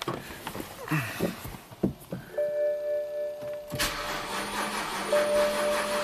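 A steady electronic chime tone comes on about two seconds in. From about four seconds the starter cranks the BMW 328i's 3.0-litre inline-six steadily, but it never catches: a crank no-start with little or no ignition spark, which the technician puts down to an engine computer fried by a coil ground left disconnected.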